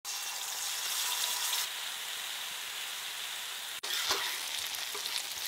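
Hot oil sizzling in a pan as food fries: a steady hiss that drops out suddenly for a moment just before four seconds in, then carries on.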